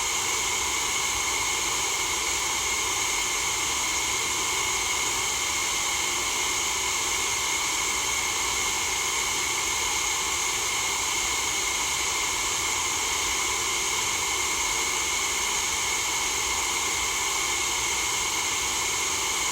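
Empty-room ambience: a constant, even hiss that never changes, with no separate sounds in it.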